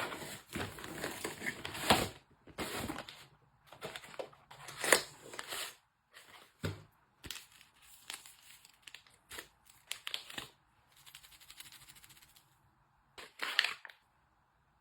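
Packaging being handled: irregular crinkling and rustling, with short sharp taps, busier in the first half and sparser later.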